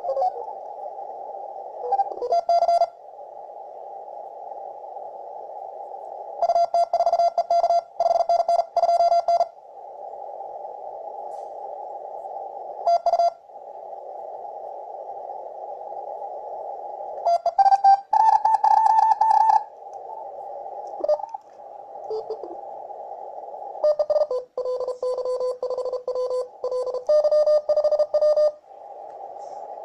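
Shortwave receiver audio from a FlexRadio FLEX-1500 in CW mode with a narrow filter: a steady hiss of band noise, which is urban electrical interference picked up by a vertical antenna. Morse code signals key in and out over the hiss several times as the radio is tuned across the 20-metre CW band.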